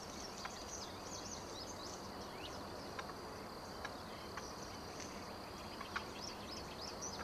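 Spring woodland ambience: many small birds chirping and singing at a distance over a steady high-pitched drone, with a few sharper single chirps standing out.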